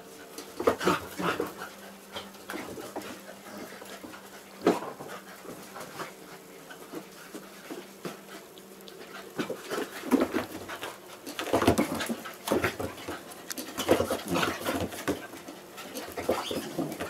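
A basset hound and a labradoodle play-fighting, panting. Short loud bursts of dog noise come about a second in and again near five seconds, then thicken into a busy run from about ten to sixteen seconds.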